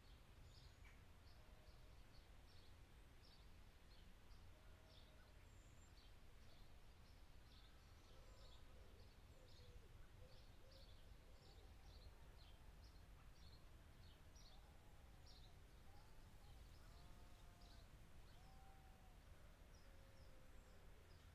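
Faint outdoor ambience: many small birds chirping in quick high notes throughout, with some lower, rounded calls joining from about a third of the way in, over a steady low rumble.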